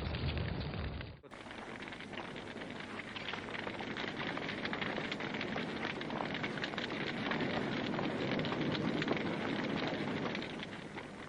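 An abrupt cut about a second in, then dense, continuous crackling made of many small rapid cracks.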